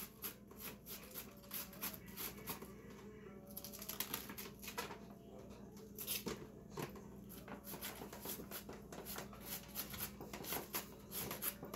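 Small knife slicing thin shreds off a raw cabbage head held in the hand: a fast, irregular run of crisp cuts.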